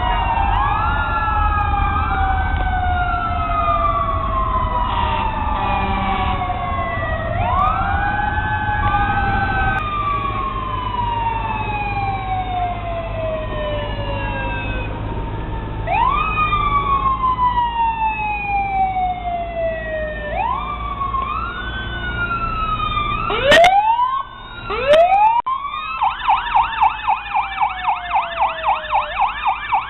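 Several fire-engine and ambulance sirens wailing at once, each rising and then slowly falling in pitch, over the rumble of truck engines. Near the end come two loud sharp bursts, then a siren switches to a fast yelp at about three cycles a second.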